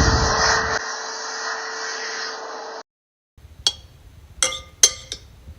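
Steady rushing, whirring noise with a faint hum. It thins out about a second in and cuts off suddenly near three seconds, followed by a few sharp light clicks.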